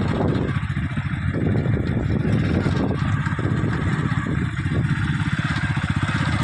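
An engine running steadily, with rapid, even firing pulses.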